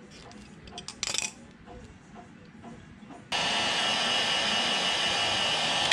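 Handheld Blue-Point electric heat gun switched on about three seconds in, its fan running with a steady loud hiss and a whine in it. Before that, a brief clatter of handling tools and wire about a second in.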